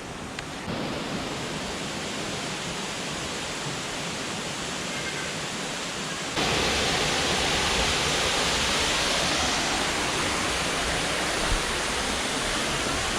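Steady rushing of a waterfall carrying a heavy rainy-season flow, an even noise of falling water that steps up abruptly and grows louder about six seconds in.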